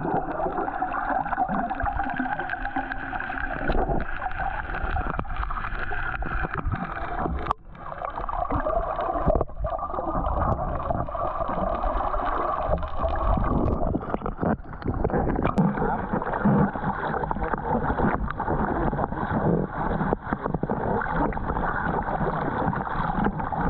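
A boat's engine running steadily, with a brief drop in level about seven and a half seconds in.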